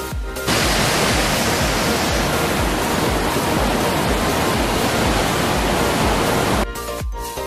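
Water rushing over rocks in a small canyon stream, a loud steady hiss that cuts in about half a second in and cuts off suddenly near the end. An electronic dance-music beat runs underneath.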